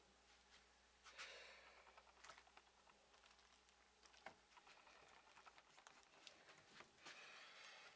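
Near silence, with faint rustling twice and a few light clicks of handling.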